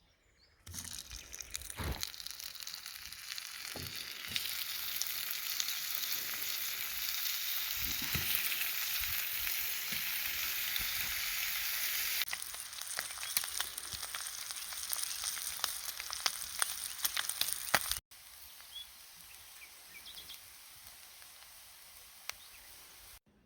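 Bacon and eggs sizzling and crackling in a frying pan, in several short cut-together takes; the frying is loudest in the first part and much quieter in the last few seconds.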